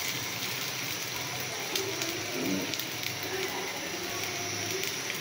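Sliced onions frying in hot cooking oil in a steel karahi: a steady sizzle with fine crackles, the onions freshly added to the heated oil.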